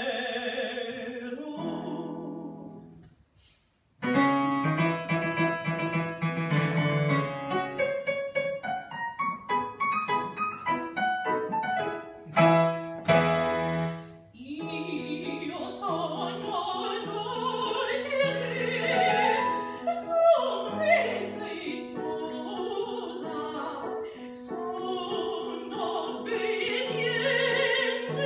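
Female operatic singing with digital piano accompaniment. Her phrase ends about two seconds in. After a brief silence the piano plays alone for about ten seconds, then she comes in again and sings on over the piano.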